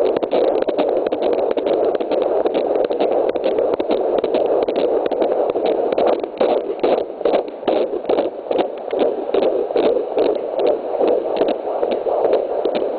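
Fetal heartbeat at 23 weeks, picked up by an ultrasound Doppler: a fast, even beat of about two and a half a second over a steady hiss. The beat is clearest in the second half.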